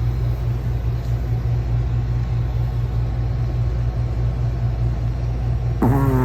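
A sleeping pet snoring: a steady, low rattling rumble, with a short pitched, whine-like tone coming in near the end.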